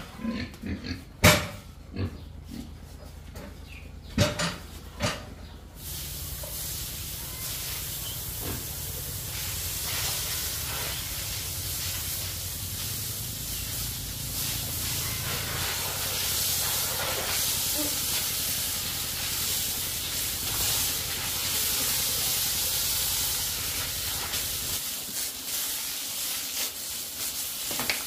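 Pigs in a concrete pen give a few short, loud calls in the first five seconds. Then, about six seconds in, a garden hose starts spraying water over the pigs and the pen floor, a steady hiss that lasts to the end, with a low hum under it that stops near the end.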